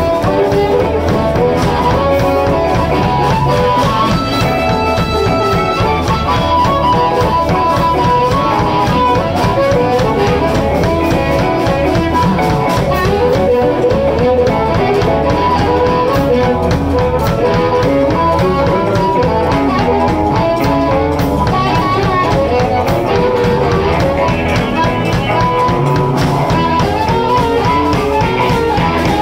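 Live blues band playing an instrumental passage: guitar over a drum kit.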